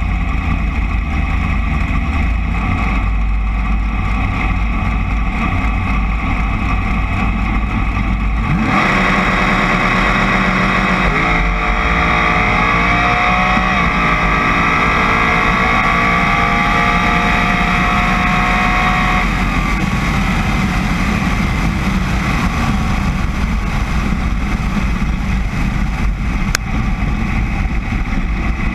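Dragster engine heard from the cockpit, starting with a low, heavy rumble at the start line. About nine seconds in it goes to full throttle for the launch, and the engine note climbs in pitch through the pass. Some ten seconds later it eases off to a lower, steadier run-down.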